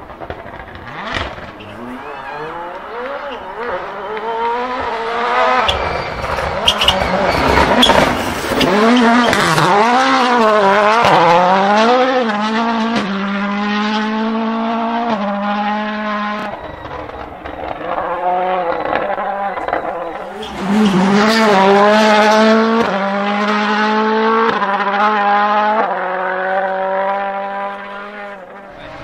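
Toyota Yaris WRC rally car's turbocharged 1.6-litre four-cylinder engine being driven hard on a stage. The revs rise and fall repeatedly, with sudden steps in pitch as it changes gear, and it is loudest around the middle and again about two-thirds of the way in.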